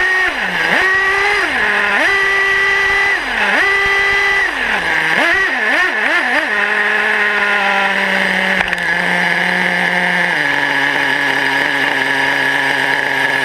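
RC truck's small nitro engine revving up and down over and over, each rev held for about a second, while the truck drives. About six and a half seconds in it settles to a steady idle, which drops lower about ten seconds in.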